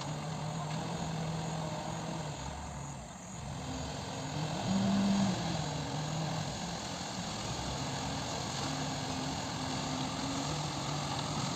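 Diesel engine of a self-loading concrete mixer running steadily, briefly getting louder and higher about five seconds in.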